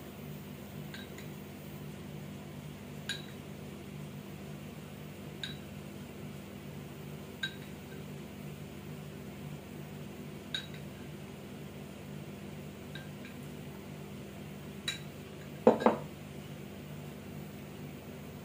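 Light clinks of a pastry brush against a glass bowl, every two seconds or so, as the brush is dipped and the cake's top layer is soaked, over a steady low hum. About three seconds before the end come two louder knocks close together.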